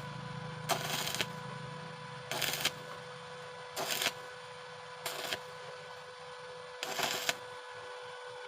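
Stick welder on thin sheet metal with a 2.6 mm electrode, struck in short arcs: five bursts of crackling arc, each about half a second, roughly every one and a half seconds, over a steady electrical hum.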